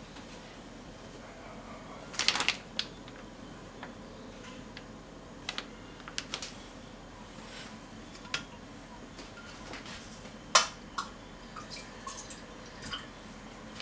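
Scattered taps and clicks of bone-in short rib pieces being turned in flour in a stainless steel bowl, knocking against the metal. A quick cluster of knocks comes about two seconds in, and the loudest single knock about ten and a half seconds in.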